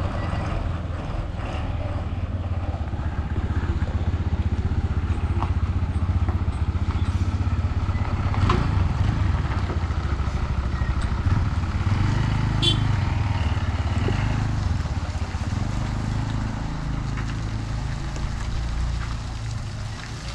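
Bus engine running under way, heard from inside the cabin: a steady low drone with a few short knocks and rattles. The engine note shifts up and down a little past halfway.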